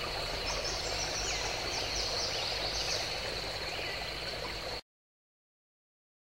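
Outdoor nature ambience: birds calling in short swooping chirps over a steady high drone and a soft noisy wash. It cuts off suddenly about three-quarters of the way through, leaving dead silence.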